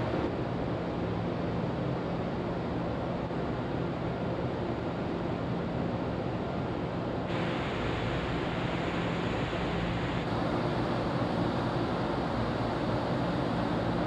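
Steady rush of wind and water on a ferry's open deck, with the low, steady drone of the ship's engines underneath. The rush gets brighter about seven seconds in.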